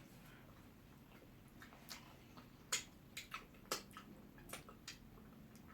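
Quiet, irregular wet clicks and smacks of eating: mouths chewing and smacking on pounded yam and ogbono soup, the two loudest clicks close together near the middle.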